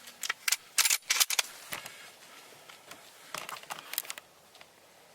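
A run of sharp mechanical clicks and knocks of gear being handled, loudest and quickest in the first two seconds, then a quieter cluster about three and a half seconds in.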